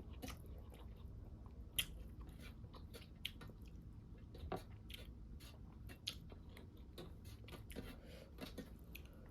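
A person chewing food close to the microphone, with soft, irregular wet clicks and small crunches.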